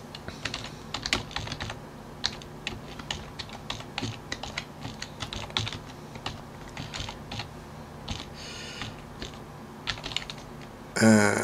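Typing on a computer keyboard: a run of quick, irregular key clicks that thins out near the end.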